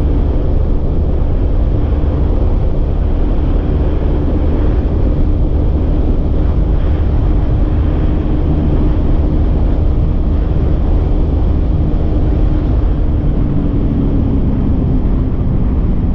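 Wind rushing over the helmet or handlebar camera microphone, with the steady drone of a Benelli TNT 600i's inline-four engine under it, cruising at about 150 km/h. The engine note dips slightly in pitch near the end.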